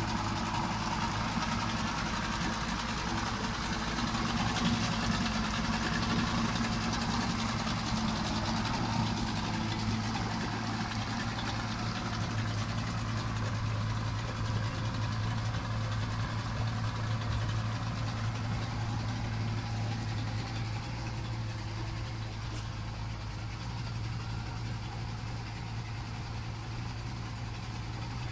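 Yamaha 50 hp two-stroke outboard motor idling steadily after a start-up, easing slightly quieter over the last several seconds.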